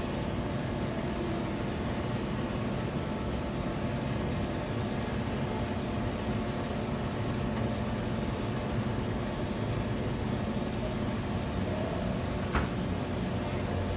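Steady low rumbling noise that stays level throughout, with a single short click about twelve and a half seconds in.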